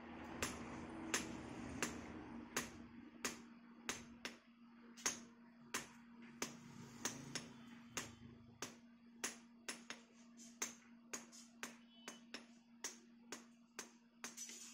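Hand hammer striking red-hot steel on a steel anvil block, sharp ringing blows about two a second, a few in quick doubles. A steady low hum runs underneath.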